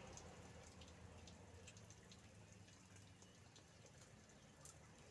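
Near silence: faint outdoor background with a low hum and scattered soft ticks.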